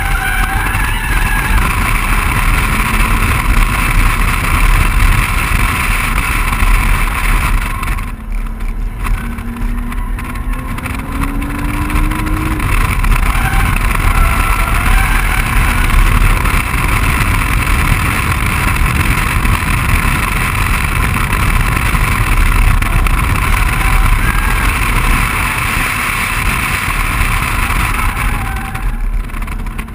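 BMW 135i's turbocharged straight-six running hard at track speed, under a heavy rush of wind over the outside-mounted microphone. The engine note dips briefly about eight seconds in, then climbs steadily as the car accelerates.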